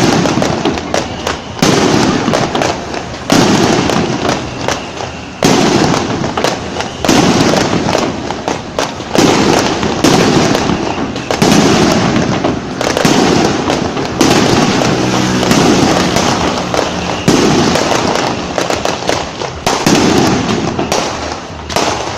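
Fireworks going off: a loud burst about every two seconds, each followed by dense crackling.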